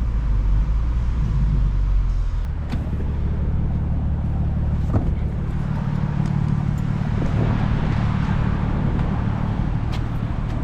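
Car engine running while driving, a steady low drone whose pitch pattern changes about two seconds in.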